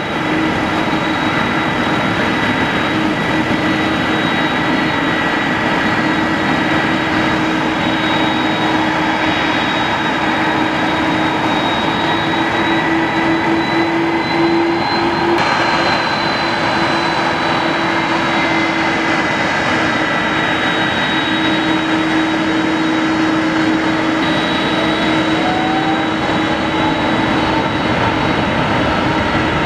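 Airbus A330-200's two GE CF6-80 turbofan engines running at taxi power: a steady, loud rush of jet noise with a high whine and a lower hum riding on it, drifting slightly in pitch partway through.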